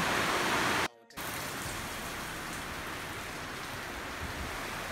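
Steady rain falling, an even hiss with no distinct drops standing out, broken by a brief moment of near silence about a second in.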